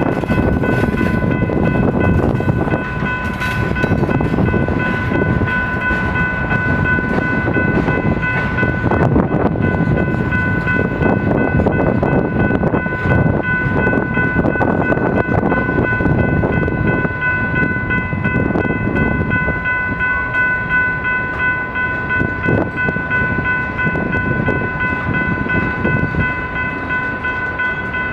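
Loaded freight cars of a BNSF manifest rolling past: tank cars and covered hoppers, with a continuous rumble and clatter of steel wheels on rail. A steady high ringing tone holds over it throughout.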